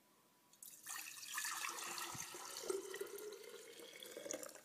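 Carrot juice poured from a bowl into a glass pitcher: a splashing stream starts about half a second in, its pitch rising slowly as the pitcher fills, and stops near the end.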